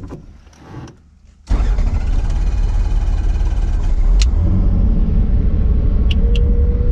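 Robinson R44 Raven II helicopter's six-cylinder Lycoming piston engine starting: a few quiet switch clicks, then the engine catches abruptly about a second and a half in and runs loud and steady, with a steady whine coming in near the end.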